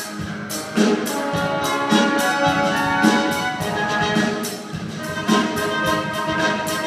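Processional church music led by brass, with orchestral backing and a steady beat about twice a second.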